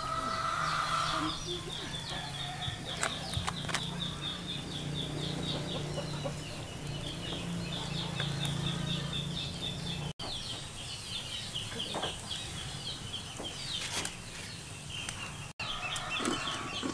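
Chickens clucking in a rural yard, over a fast, steady run of high chirping. The sound cuts out for an instant twice, about ten and fifteen seconds in.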